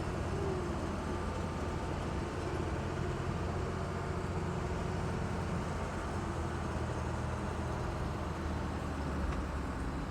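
Steady engine and road noise of an amphibious Duck tour vehicle, a converted WWII DUKW, driving along.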